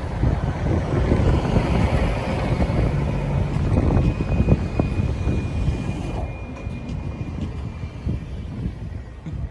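A train on the move: a steady low rumble with a thin, steady high whine for a few seconds in the middle.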